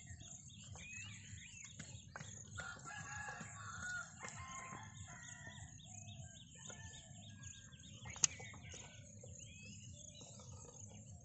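A rooster crows once, about two seconds in, a drawn-out pitched call lasting over a second, over faint chirping of small birds and a low steady outdoor hum. A single sharp click comes near the end.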